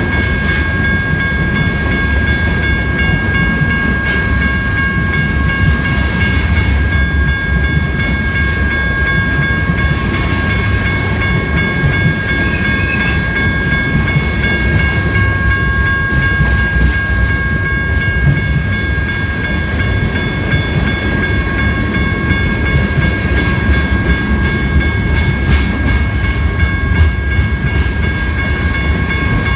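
BNSF covered hopper cars rolling past at a grade crossing: a steady low rumble of wheels on rail. Over the rumble, a steady high-pitched tone is held throughout.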